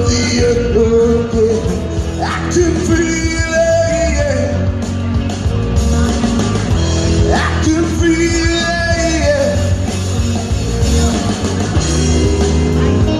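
A live rock song played through PA speakers: a man sings long held notes over a steady, bass-heavy backing, with a second voice joining in.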